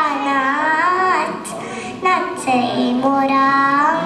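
A young girl singing a Marathi song solo, in long held notes that glide up and down in pitch, softer for a moment just before two seconds in.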